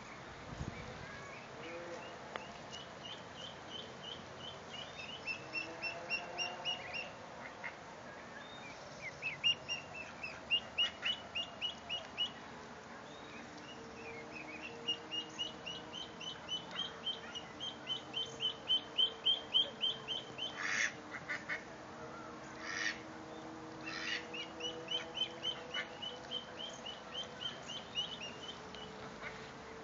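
Ducklings peeping: runs of quick, high peeps, about four or five a second, coming in repeated bouts. A few short, sharper sounds stand out a little past the middle.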